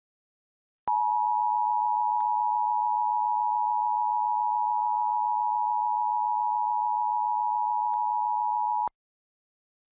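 Emergency Alert System two-tone attention signal, two steady tones sounding together (853 and 960 Hz), for about eight seconds. It starts about a second in with a click and cuts off sharply with another click, announcing a broadcast alert test.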